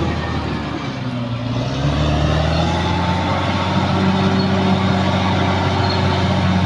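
Caterpillar D6R XL bulldozer's diesel engine running; about a second in it sags and drops in pitch, then picks back up and runs steadily.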